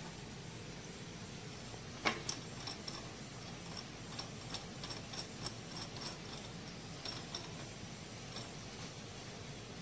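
Metal parts of a hose-crimping machine being handled during a die change. There is one sharp metallic knock about two seconds in, then a run of light, irregular clicks that die away over the next five seconds.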